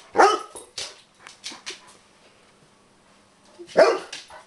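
Bernese mountain dog barking: one loud bark just after the start and another, falling in pitch, near the end, with a few softer short barks in between and a lull of about a second and a half.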